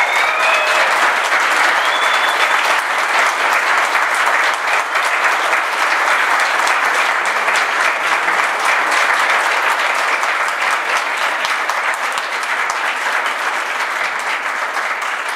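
Roomful of people applauding steadily, dense clapping with a few short calls in the first seconds, thinning out near the end.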